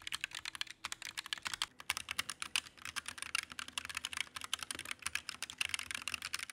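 Fast typing on a Roccat Vulcan II Mini Air keyboard with Titan II optical switches, a dense run of quick key clacks. It is first played with the stock keycaps, then from about two seconds in with semi-transparent PBT keycaps.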